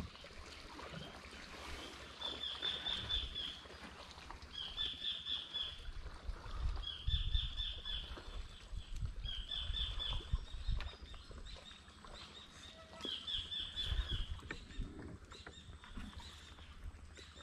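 A bird calling a short phrase of rapid high chirps, repeated about five times a couple of seconds apart, over low rumbling noise on the microphone.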